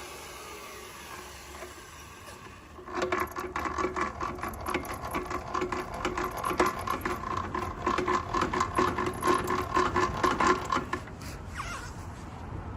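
Ryobi AP-10N thickness planer running unloaded, then about three seconds in a board feeds through and the cutter head cuts it for about eight seconds, a loud dense rattle with a steady whine, before the planer drops back to running unloaded.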